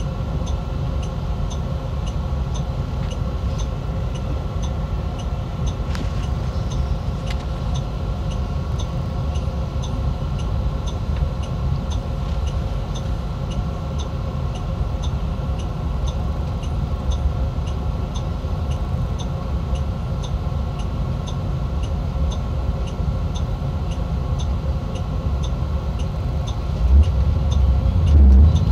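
Interior of an MCI D4505 motor coach, its diesel engine running in a steady low rumble, with a regular light ticking at about two ticks a second. The engine grows louder near the end as the coach pulls away.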